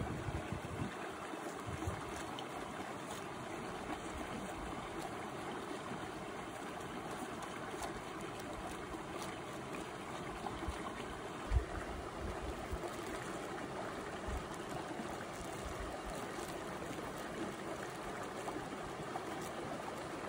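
A stream running steadily, an even rushing of water. A single soft thump about eleven and a half seconds in.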